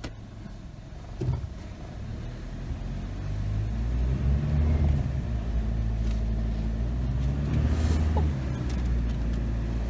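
Car engine and road rumble heard from inside the cabin, growing louder a few seconds in as the car gets under way, with a short knock near the start.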